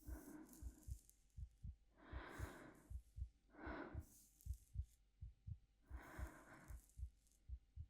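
Heartbeat thumping steadily in close lub-dub pairs, with soft, slow breathing over it: four unhurried breaths, close to the microphone.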